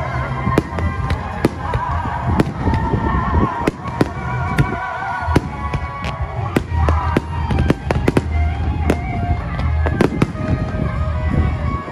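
Aerial fireworks bursting in a rapid, irregular barrage of sharp bangs, several a second at times, with music playing underneath.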